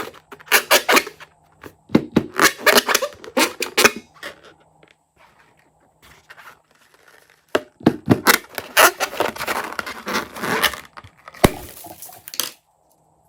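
Slime being worked by hand, with dense sticky crackling and popping in two spells separated by a pause of a few seconds; it stops a little before the end.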